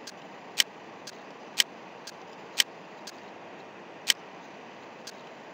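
Sharp, short clicks of a computer mouse, a few loud and others faint, falling roughly once a second over a quiet steady hiss.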